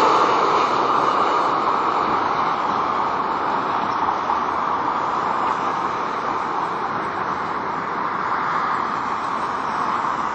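Boeing 787-8 Dreamliner on final approach, its jet engines' steady rushing noise slowly fading as the airliner moves away toward the runway.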